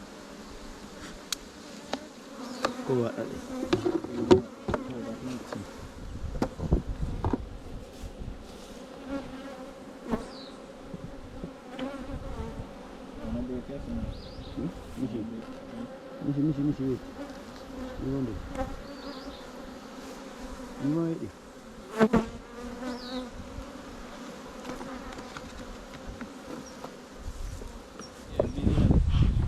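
A mass of honey bees buzzing steadily, with scattered knocks and handling noises. A loud low rumble comes in near the end.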